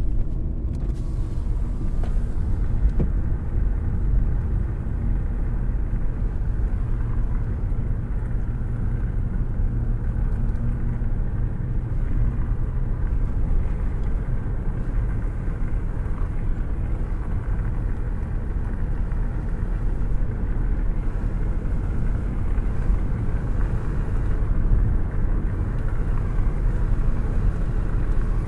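A car cruising at steady speed, heard with a window open and a hand held out in the airstream: a steady low rumble of road and wind noise.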